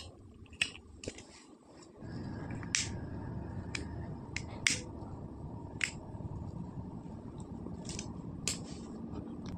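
Large scissors snipping through macrame cord: a series of short, sharp snips at irregular intervals, over a faint steady hiss that starts about two seconds in.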